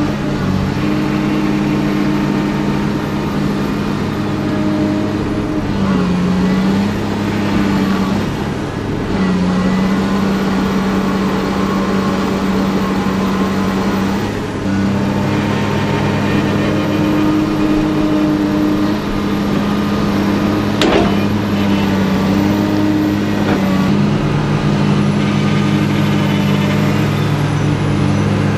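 Komatsu PC300 hydraulic excavator's diesel engine running hard with the hydraulics working, its note dipping several times as the boom and bucket take load while the machine, bottomed out on a soft earthen dam, is worked to get free. A high whine rises and falls above the engine, and there is one sharp clank about two-thirds of the way through.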